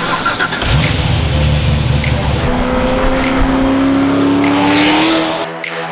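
A car engine under load: a deep, loud rumble, then a steadily rising engine note as the car accelerates. Music comes in near the end.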